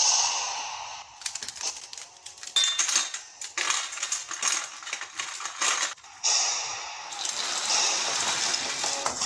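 Hiss of deep-frying in hot oil, with a few seconds of crisp crunching and clattering clicks in the middle.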